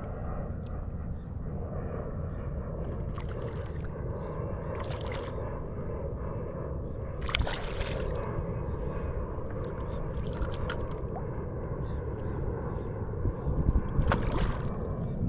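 Steady wind rumble on the microphone with water sloshing against the kayak, broken by short splashes about halfway through and again near the end as a hooked trout thrashes at the surface.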